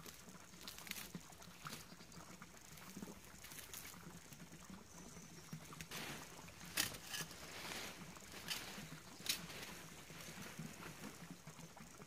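Dry dead leaves rustling and crackling as they are raked up and gathered by hand, with two sharper crackles in the second half.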